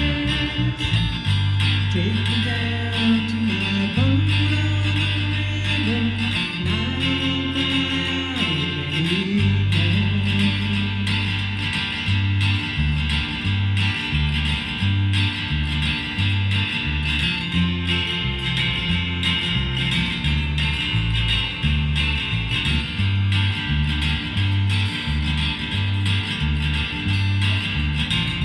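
Live guitar duo playing a song: strummed acoustic guitar over a low bass line that moves from note to note. A sliding melody line, possibly a voice, is heard over it for roughly the first ten seconds.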